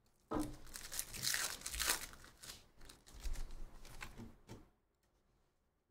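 Crinkling and tearing of a foil trading-card pack wrapper being ripped open by hand, an irregular crackle that stops abruptly about three-quarters of the way through.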